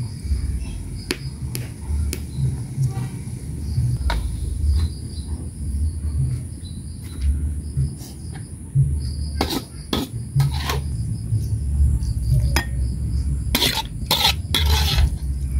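Metal spatula knocking and scraping against a metal wok as cooked mustard greens and broth are scooped out into a bowl, with a cluster of knocks and scrapes near the end. Behind it runs a steady low rumble, with insects chirping.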